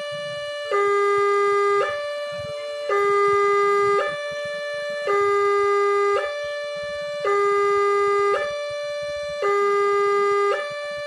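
Railway level-crossing warning siren sounding a two-tone hi-lo alarm, switching about every second between a louder low note and a quieter higher note; it signals that a train is approaching the crossing.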